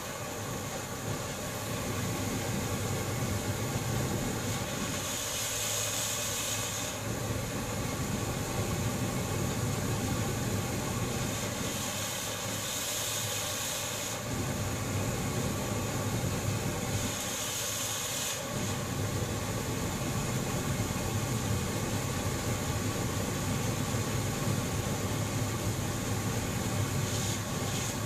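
Steady rushing of a propane torch flame, broken three times by short bursts of compressed-air hiss as the ball valve is opened to blow powdered dry fuel into the flame; near the end a fainter hiss comes as the powder flares up.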